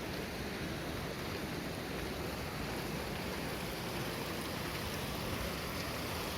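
Steady rushing of a fast mountain stream, an even hiss and rumble that does not change.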